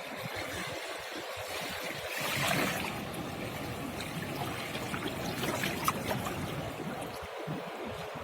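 Seawater trickling and washing among shore rocks, swelling louder for a moment about two seconds in.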